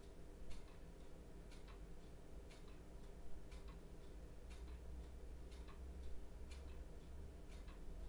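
Clock ticking in a quiet room, with sharp ticks about once a second over a low, steady room hum.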